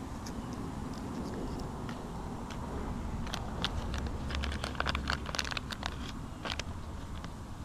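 Hand-work noise on a string trimmer's primer bulb assembly: scattered light clicks, taps and crinkling of small plastic parts being handled, thickest in the middle few seconds, over a low steady rumble.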